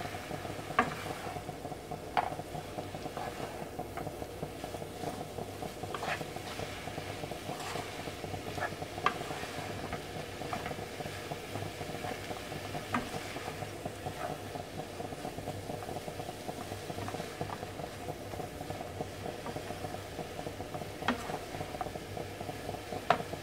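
Spinach and king prawns sizzling in a non-stick frying pan while being stirred with a wooden spatula, the spatula knocking sharply against the pan every few seconds.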